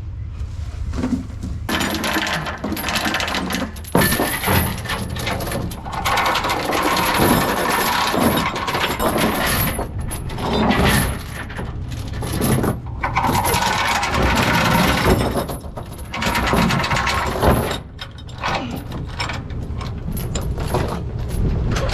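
Steel clanking and rattling, a run of many sharp metallic knocks and jingles, easing off near the end.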